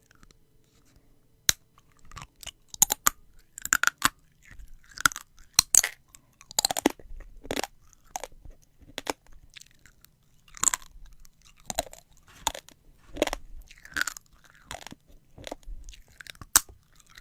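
Close-up eating sounds: a person chewing food with irregular crunches and wet smacking clicks, one or two a second.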